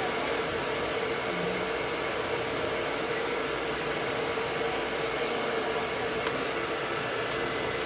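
Hair dryer running steadily: an even rush of blown air with a constant hum.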